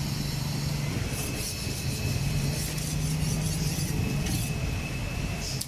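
Street noise with a steady low hum, and a few light clinks and scrapes of metal tongs against a grill grate.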